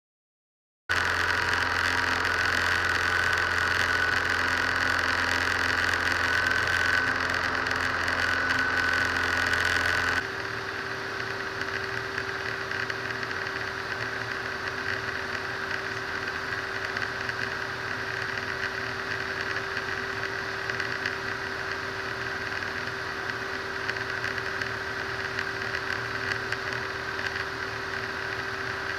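Cabin noise of a Robin DR400 light aircraft in flight: the piston engine and propeller make a steady drone that starts about a second in. About ten seconds in it drops abruptly to a quieter, duller steady drone.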